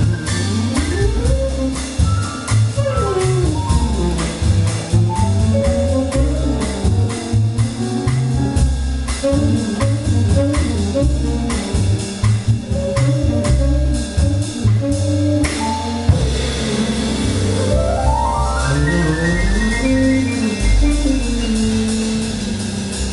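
Live acoustic jazz quartet: tenor saxophone playing the melody over piano, double bass and a drum kit with cymbals. Near the end a quick rising run climbs high.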